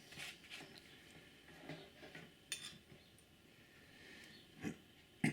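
Faint clicks and light metallic taps of small tools and parts being handled on a workbench, with a sharper click about two and a half seconds in and two louder ones near the end.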